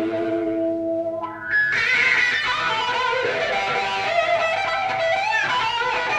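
Blues-rock band playing with electric guitar out front: held notes at first, then about a second and a half in the band comes in louder and the lead guitar plays lines with pitch bends.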